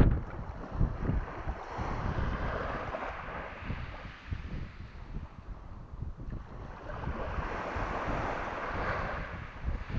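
Sea waves washing in, the hiss swelling twice, with wind buffeting the microphone.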